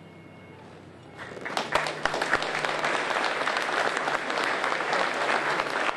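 Audience applauding: about a second in, many people start clapping together, and the clapping carries on steadily.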